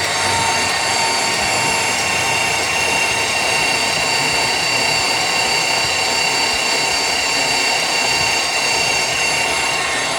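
Portable line-boring machine running steadily as it cuts metal in a worn pin bore, with a continuous high squeal of several steady tones over a grinding noise.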